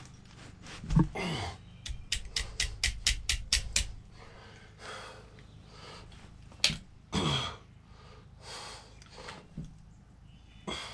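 Hand tools at work on a motorcycle: a quick run of about nine even clicks over two seconds, with scattered knocks and rustles of parts being handled.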